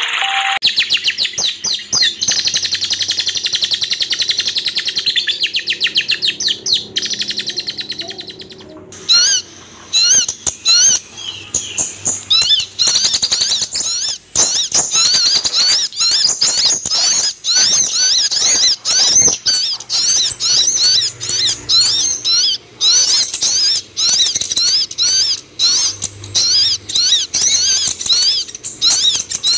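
Kolibri ninja (Van Hasselt's sunbird) song: a fast, high, buzzy trill for about the first nine seconds, then a long run of quick, sharp high chirps, several a second.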